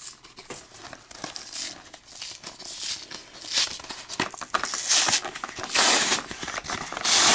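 Plastic blister pack being pried open: the cardboard backing tearing away and the clear plastic shell crinkling, in irregular crackles that get louder in the second half.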